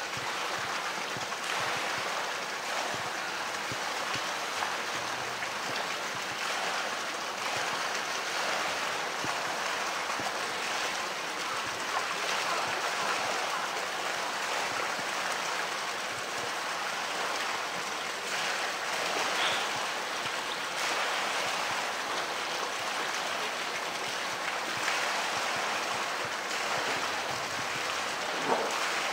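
Water sloshing and splashing continuously in a pool as a polar bear swims and pushes a blue plastic tank through it, with a couple of sharper splashes near the end.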